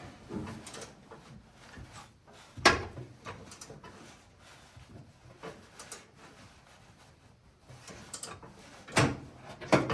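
Scattered clicks and knocks of hand tools and metal parts being handled during brake line work, with one sharp knock about three seconds in and two more near the end.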